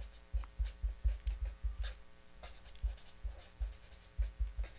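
Felt-tip marker writing on paper on a desk: a quick, irregular run of short strokes and light clicks, with soft low knocks from the pen and hand against the desk.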